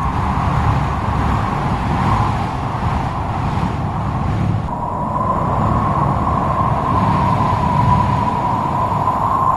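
Strong stormy wind blowing steadily with a low rumble and a high, wavering whistle that fades a few seconds in and comes back strongly about halfway through.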